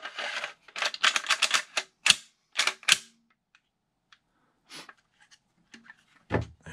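WE G18c airsoft pistol slide being fitted back onto its frame: a quick run of clicks and clacks for about three seconds, one louder clack about two seconds in, then a few light ticks and one louder knock near the end.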